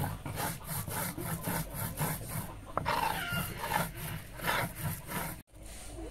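Spices being ground on a textured stone slab (sil-batta) with a hand-held grinding stone: stone rasping on stone in quick back-and-forth strokes, about four a second. It cuts off suddenly about five and a half seconds in.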